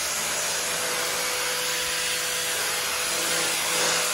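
Sun Joe 3200 electric pressure washer running, its jet spraying onto a concrete driveway: a steady hiss of water with a faint steady hum under it.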